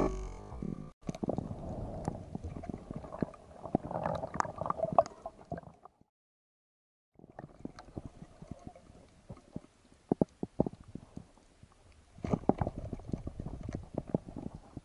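Underwater noise on a diving camera's microphone: gurgling water movement with irregular clicks and knocks from handling the speargun and its line as a just-speared fish is brought in. The sound cuts out for about a second midway.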